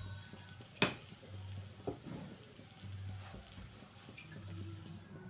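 Faint sizzle of a mooli paratha cooking on an iron tawa over a low gas flame, with two sharp clicks about one and two seconds in and a low hum that comes and goes.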